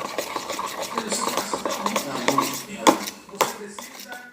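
A utensil clicking and scraping against a container while glue and boric-acid water are stirred into slime, in quick irregular taps with a louder knock about three and a half seconds in.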